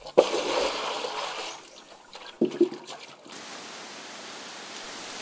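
Water poured in a rush from a clay pot into a pit of loose earth, splashing for about a second and a half before it tails off. A couple of short knocks follow about two and a half seconds in.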